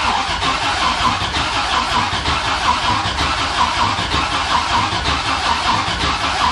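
2000 Dodge Viper GTS's 8.0-litre V10 cranking over steadily on the starter without firing, because the fuel pump is not delivering fuel.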